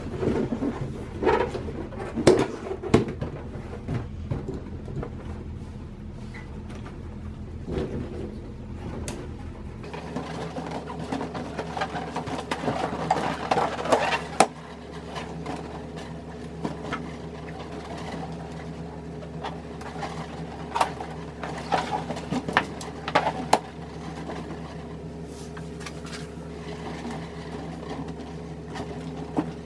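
Inflated latex balloons being handled and tied together by their necks, giving scattered rubbery squeaks, rubs and light knocks over a steady background hum.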